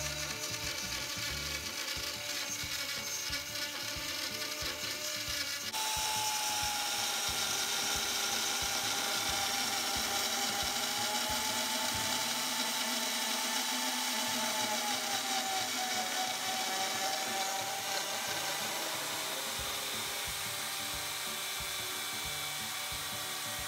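Porter-Cable trim router running on a CNC router, its quarter-inch end mill cutting a slot in a block of aluminium. From about six seconds in it is louder, with a steady high whine over the cutting noise.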